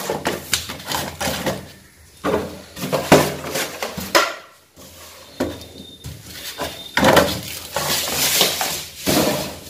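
Plastic jars and a steel spoon being handled on a kitchen counter: a run of clicks and knocks, then a longer scraping rustle from about seven seconds in.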